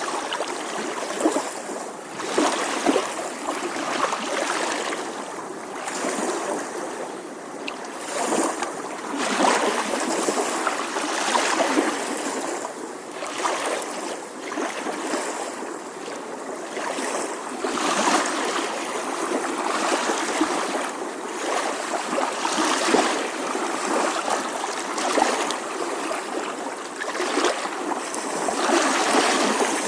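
Small ocean waves lapping on a shore, a continuous wash of water with irregular swells and little splashes.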